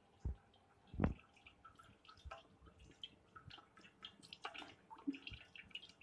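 Tamarind water being strained: a spoon pressing and scraping tamarind pulp in a steel mesh strainer, with liquid dripping into a steel bowl below. Scattered small taps and drips, with a soft knock about a second in.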